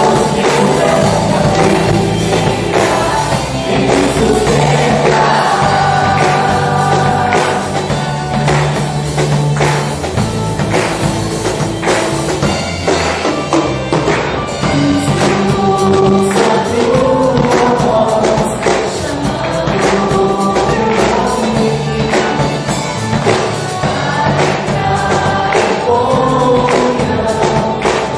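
Christian worship song: several voices singing together over a band with a steady drum beat.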